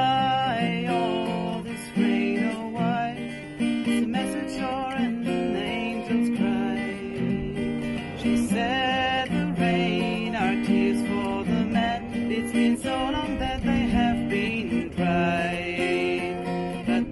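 Steel-string acoustic guitar strummed in a steady rhythm through an instrumental passage of a song, with a woman's voice singing a few wordless phrases, near the start, in the middle and near the end.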